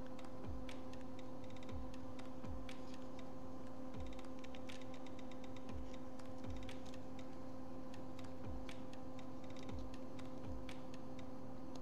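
Scattered light clicks and taps at an uneven pace, over a steady electrical hum.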